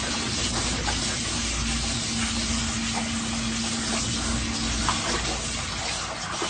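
Water splashing and rushing steadily in a garden paddling pool as a dog splashes about in it. A low steady hum runs under it through the middle of the stretch.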